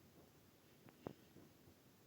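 Near silence: room tone, with one faint short click about a second in.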